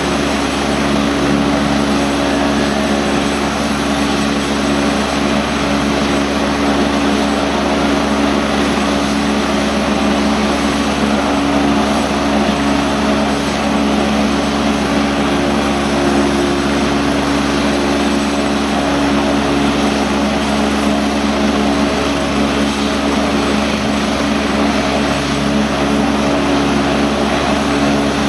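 Light twin-turbine helicopter, an AgustaWestland A109, running on the ground with its rotors turning: a steady turbine whine over even rotor noise, holding the same pitch and level throughout.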